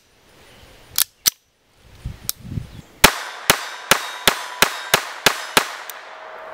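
Beretta 950 .25 ACP pocket pistol fired eight times in a quick, even string, about three shots a second, starting about three seconds in. A few sharp metallic clicks of the pistol being handled come before the shots.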